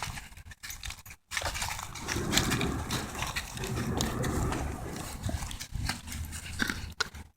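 Loud, strange noise in the night sky with a low rumble, which the listener takes to come from a big construction crane at the stadium building site. It breaks off briefly about a second in.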